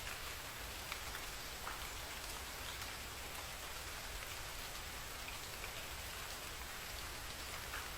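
Steady rain falling, with scattered louder drops ticking now and then.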